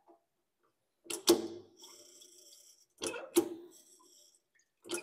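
Hand pressure test pump being worked, three pump strokes about two seconds apart, each a double clunk, with a faint high hiss after the first two. The strokes are raising pressure in soldered copper pipe joints for a 10 bar pressure test.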